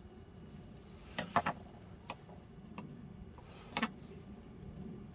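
A few sharp clicks and light clatters of small hard objects being handled: a quick cluster about a second in, lighter single ticks after it, and a louder double click near four seconds.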